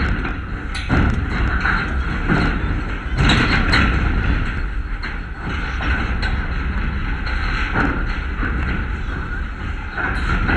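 Wind rumbling on the microphone, with children's voices calling out in the background and a few sharp knocks.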